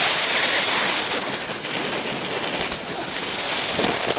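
Strong wind of about 20 to 25 mph blowing steadily across the camera microphone, a loud, even rush.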